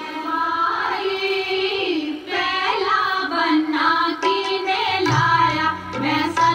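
Punjabi folk song with singing and accompaniment, a low drum beat coming in about five seconds in.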